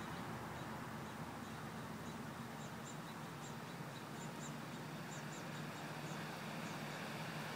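Outdoor ambience: a steady rush of wind and background noise, with faint, short high chirps of small birds scattered through the middle.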